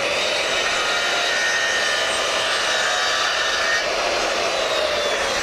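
Handheld circular saw running steadily as its blade cuts a miter through a fascia board, the motor whining under load.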